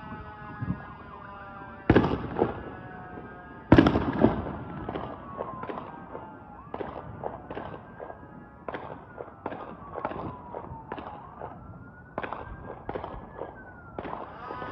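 Fireworks going off: two loud bangs about two and four seconds in, then scattered pops and crackles. Meanwhile a mini Sentry 7V8 siren winds down at the start, its tone then gliding faintly up and down, and it swells back up near the end.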